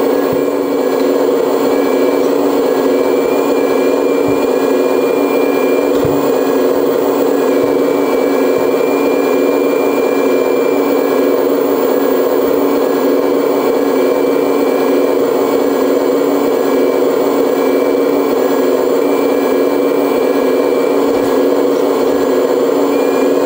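Hydraulic pump of a Liebherr R 970 SME scale RC excavator running steadily, a constant hum with a thin high whine that comes and goes as the boom and grab are worked under load, with a few light clicks.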